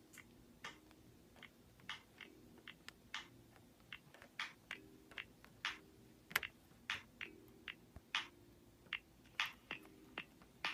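Light, irregular clicks and taps of handling, roughly one or two a second, over a faint low hum that comes and goes.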